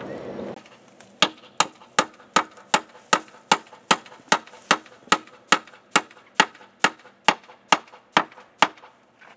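A hammer striking, about twenty sharp, evenly spaced blows at roughly two and a half a second, then stopping near the end.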